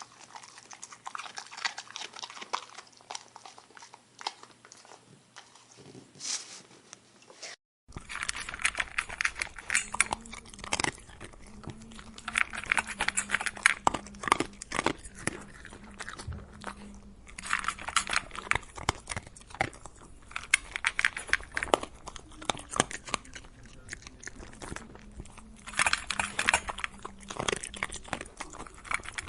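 A dog chewing and crunching its food with many irregular, wet crunches and bites. There is a brief break about eight seconds in, then a second, louder stretch of crunching with a faint steady hum behind it.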